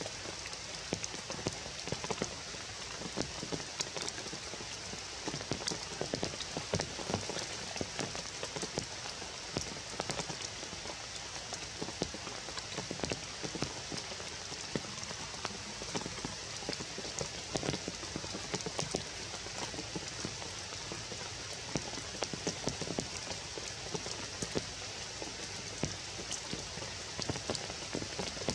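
Steady rain falling on forest leaves: an even hiss dense with many separate drop hits.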